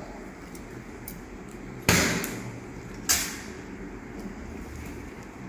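Two sharp clinks of steel surgical instruments, about a second apart, each ringing briefly, over a low steady hum.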